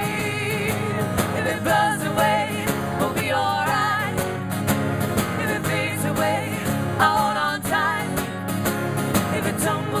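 Live band performance: strummed acoustic guitars and drums with singing, a folk-pop song played to an audience.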